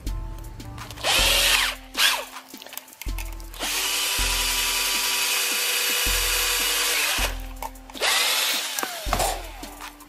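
A power drill spinning a red and black wire pair to twist it together: a short burst about a second in, a steady run of about three and a half seconds through the middle, and another short burst near the end.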